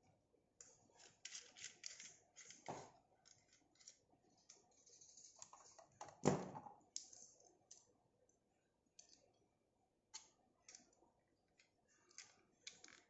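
Faint clicks and rustles of small plastic parts being handled on a tabletop, with one louder plastic knock about six seconds in.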